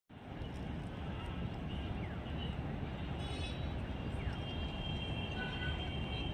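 Open-beach ambience: a steady low rumbling noise, with faint thin high whistle-like tones coming in from about halfway through.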